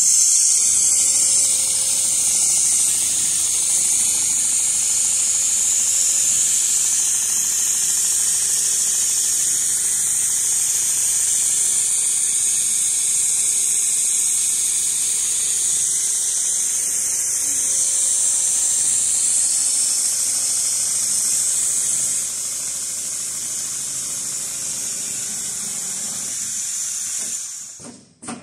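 Richpeace automatic sewing machine stitching a quilted furniture upholstery panel, a steady high-pitched hissing whir. It drops a little in level about 22 seconds in and cuts off near the end.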